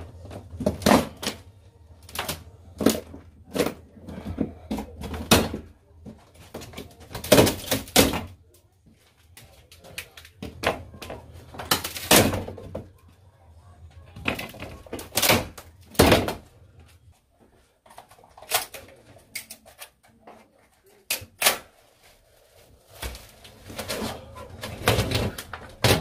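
Tongue-and-groove wall cladding boards being pulled off the wall by hand: irregular sharp cracks, snaps and knocks as the boards split and break free.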